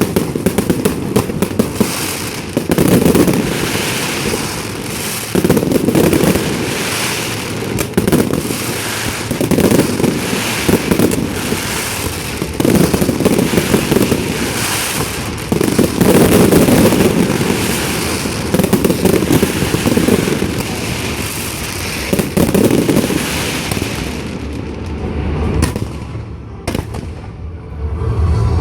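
Aerial fireworks display: dense crackling and popping with a heavy boom every two to three seconds. The crackle thins out near the end.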